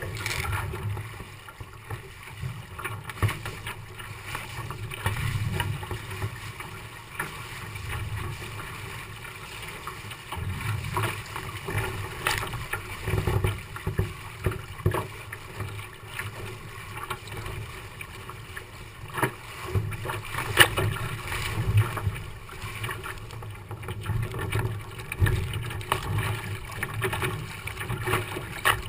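Water splashing and rushing along the hull of a Moth sailing dinghy, with wind buffeting the microphone as a fluctuating rumble and several sharp knocks from the boat in the second half.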